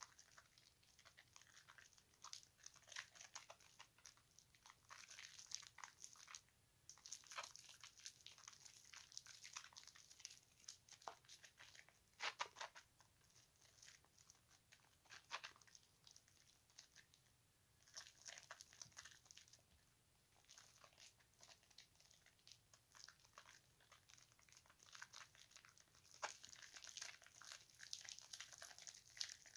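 Faint wet squishing and crackling of lather as hands rub and squeeze Dove and Caress bars of soap in a basin of sudsy water, in irregular bursts with a few short pauses.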